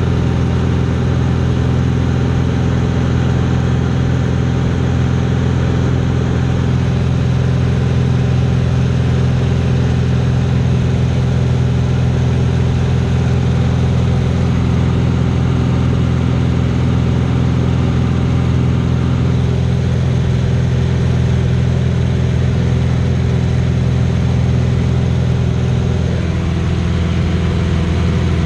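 Piston engine and propeller of an aerobatic biplane running steadily at power, heard from inside the cockpit with a rush of air noise over it. The engine note drops slightly near the end.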